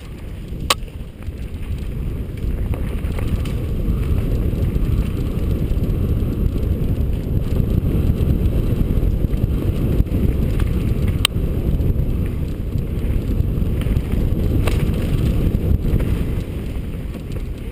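Mountain bike rolling fast down a sandy dirt singletrack, heard from a camera on the moving bike: a steady low rumble of tyres on the trail and wind on the microphone. A few sharp knocks come through as the bike jolts along, near the start and twice past the middle.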